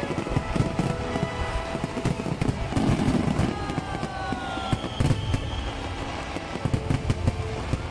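Fireworks display: many shells bursting with sharp bangs and crackles in quick succession, over a continuous low rumble.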